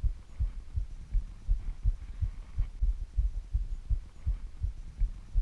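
Dull, muffled low thumps repeating unevenly, several a second, with nothing else clearly heard.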